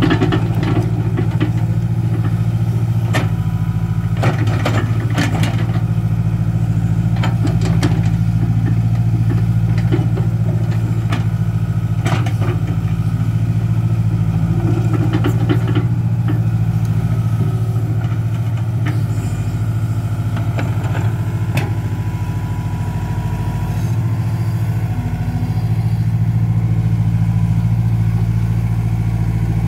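Komatsu PC60 excavator's diesel engine running steadily while the machine digs, with scattered sharp knocks and scrapes of the steel bucket in soil and stones, most of them in the first half.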